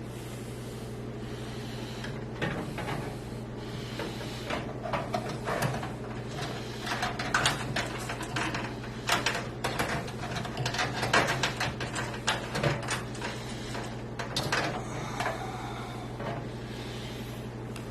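Irregular clicks, knocks and scrapes of a motherboard being manoeuvred into a PC case, busiest in the middle and easing off near the end, over a steady low hum.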